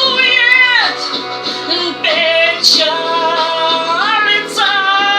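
A woman singing a slow Russian song in long held notes with vibrato and slides between pitches, over instrumental backing.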